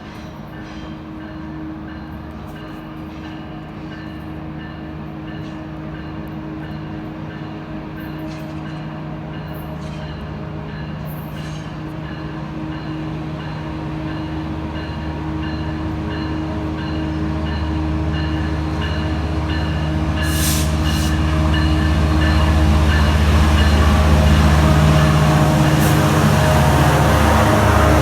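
Diesel locomotive of a train approaching, its engine drone growing steadily louder throughout. A few brief high-pitched sounds cut in part way through.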